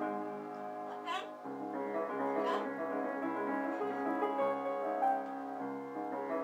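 Piano playing sustained chords, with a green-winged macaw giving a few short calls or talking sounds over it, one at about a second in and another about halfway through.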